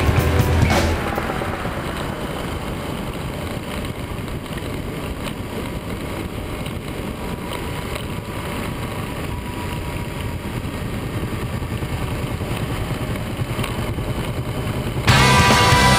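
Motorcycle engine running at road speed, heard through a camera mounted on the bike, with steady wind and road noise. Rock music plays at the start, cuts out about a second in and comes back suddenly near the end.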